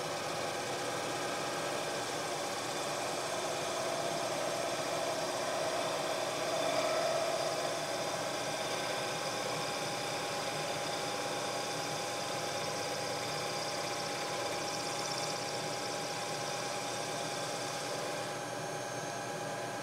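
Bridgeport knee mill running steadily with its cutter taking a boring pass through the core plug hole in an aluminum LS3 engine block. It is a constant machine hum with several steady tones, a little louder partway through, and a high whine drops out near the end.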